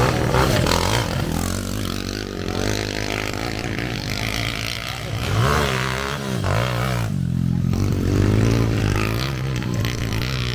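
Motocross dirt bike engines revving up and down repeatedly as the bikes ride the track, rising and falling in pitch with the throttle.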